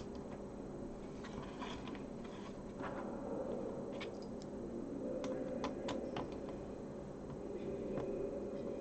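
Scattered light clicks and rustling from handling the plastic case and parts of a Sinclair QL during reassembly, with a cluster of sharp clicks around the middle, over a steady low hum.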